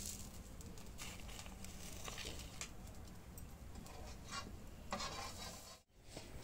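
Metal and wooden utensils scraping and tapping on a flat iron griddle as fried egg shami patties are lifted off, several short scrapes over a faint steady sizzle.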